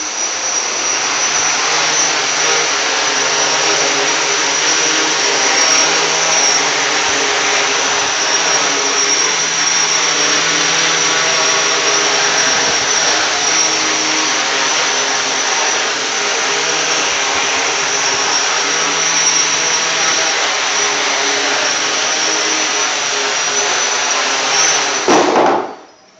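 Small quadcopter's four electric motors and propellers running steadily as it hovers, with a thin high tone over the buzz. The motors rise briefly about 25 seconds in, then stop abruptly.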